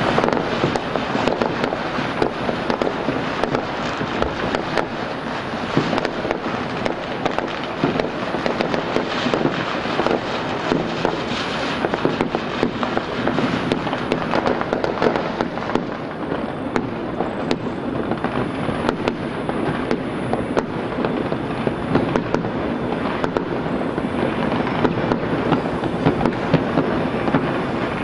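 Many fireworks and strings of firecrackers going off at once across a city: a dense, unbroken crackle of countless overlapping bangs with no pause.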